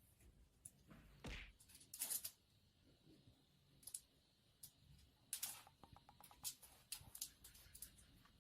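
Near silence in a small room, with scattered faint clicks and a few soft brief rustles.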